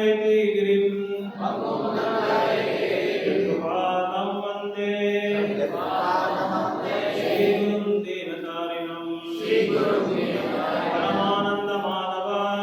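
Voices chanting a Sanskrit devotional prayer in a slow, melodic line: phrases of two to three seconds with long held notes and short breaks between them.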